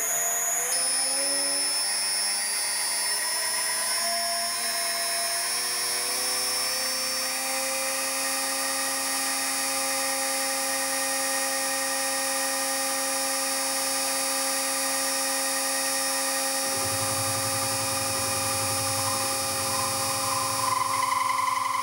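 Milling machine spindle whining as a 12 mm solid carbide end mill cuts into a mild steel block. The whine rises in pitch over the first several seconds, then holds steady. A low rumble joins about three-quarters of the way through.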